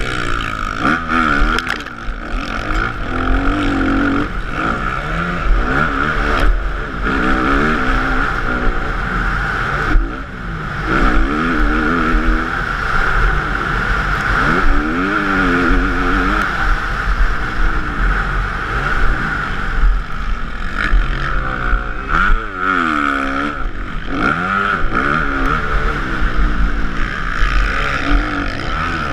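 Motocross bike engine heard from a camera mounted on the bike, revving up and dropping back again and again as the rider accelerates, shifts and brakes around the track, with a steady high whine beneath.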